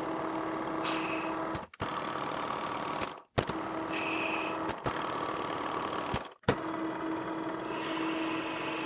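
Metal lathe running with a steady hum while a 24 TPI tap, used as a single-point threading tool, cuts an internal thread in a brass ring. A brief higher hissing scrape comes about three times as the tap cuts, and the running sound breaks off abruptly between short takes.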